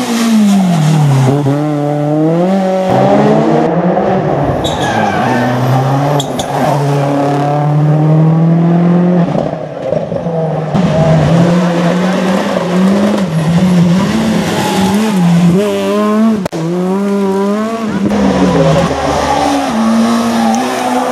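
Rally car engine at full effort, its revs climbing and dropping again and again as it accelerates, shifts and lifts off.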